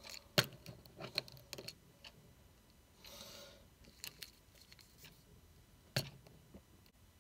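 Plastic Leonardo action figure being handled and posed: scattered light clicks and taps from its parts and joints, with a brief soft hiss about three seconds in.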